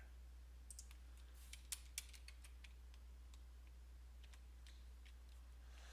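Faint, scattered clicks of a computer keyboard and mouse, about a dozen spread over several seconds, over a low steady hum.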